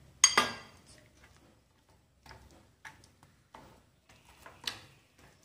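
Steel utensils clinking and tapping against a glass mixing bowl as ragi flour is mixed with water: one sharp ringing clink about a quarter second in, then a scatter of lighter clicks and taps.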